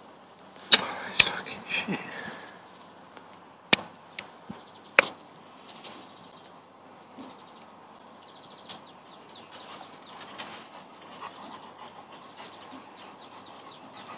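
Handling noise from a phone held close to the microphone: a few sharp knocks and rustles, the loudest cluster about a second in and two more knocks around 4 and 5 seconds, then a quieter background with scattered faint ticks.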